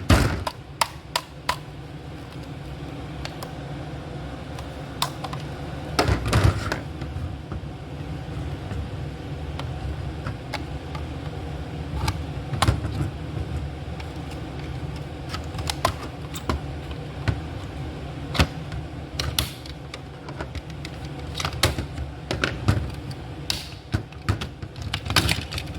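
Scattered clicks and knocks of plastic parts as a gel blaster's shell is pulled apart by hand to reach its gearbox, over a steady low hum.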